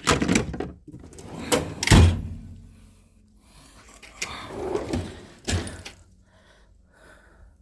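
Steel drawers of a Snap-on tool chest sliding open and shut, with several sharp metal clunks, the loudest about two seconds in, and a longer rolling slide a little after the middle.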